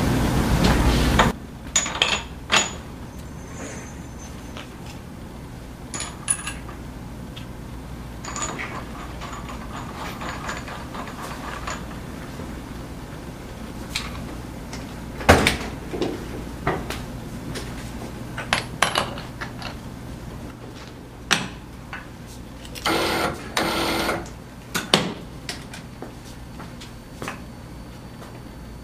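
Scattered metal clicks and knocks as a tension control bolt and its washer and nut are handled and fitted into a bolt tension tester, over a steady low hum. A louder steady noise cuts off about a second in, and two brief louder bursts come near the end.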